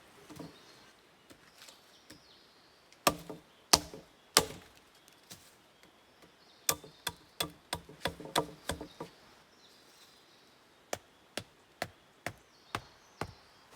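A series of hard, sharp strikes: three separate blows, then a quick run of about ten, then five evenly spaced ones about half a second apart.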